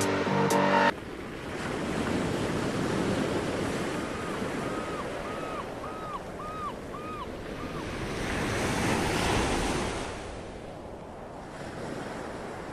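Ocean waves washing and surging, after music cuts off abruptly about a second in. Around the middle comes a run of about seven short, evenly spaced calls, each rising and falling in pitch.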